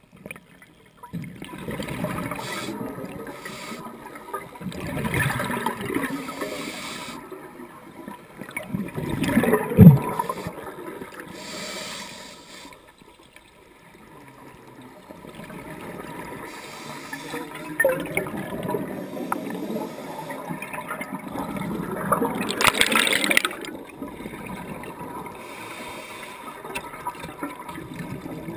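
Scuba diver's exhaled bubbles gurgling and rushing out of the regulator underwater, in bursts with quieter pauses between breaths; the loudest bursts come about ten seconds in and again past twenty seconds.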